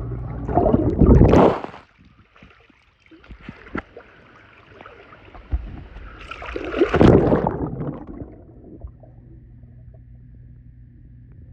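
Pool water sloshing and splashing, with two loud surges of water noise, one about a second in and one around seven seconds in, and quieter gurgling between.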